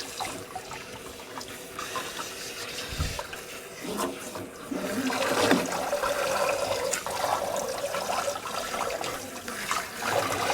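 Water running and splashing during a puppy's bath, growing louder and steadier about five seconds in.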